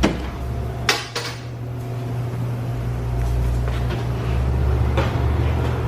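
Metal clatter and knocks from a drink vending machine being handled and opened: a sharp clack at the start and another about a second in, over a steady low hum.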